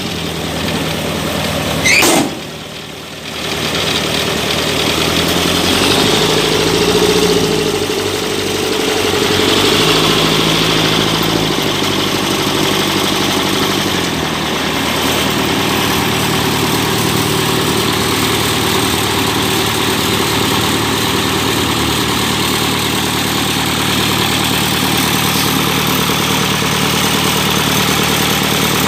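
Diesel engine of a Yanmar combine rice harvester running, its speed rising and falling several times in the first half, then idling steadily. A sharp click about two seconds in.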